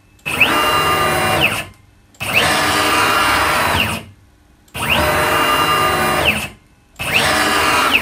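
CNC router axis: a stepper motor spinning a 5 mm pitch ball screw, jogging the carriage back and forth at 6000 mm/min. Four moves with short pauses between, each a whine that rises in pitch as the axis accelerates and falls as it slows to a stop.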